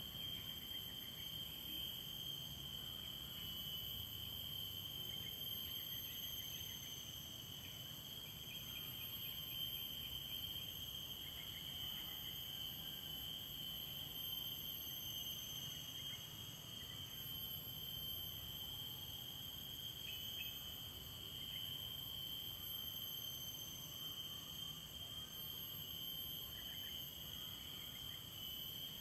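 A steady insect chorus: continuous high-pitched trilling at several pitches at once, unbroken throughout, over a low rumble.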